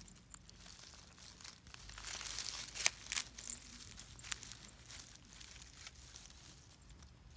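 Close, faint rustling and crackling of dry grass and weeds as cats move in them, with a few sharp clicks about three to four and a half seconds in.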